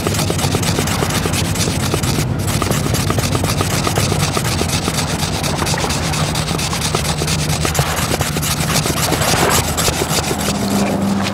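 A wooden stick rubbed fast and hard back and forth against wood, a continuous rasping scrape made of rapid strokes, as in making fire by friction. A steady low hum runs underneath.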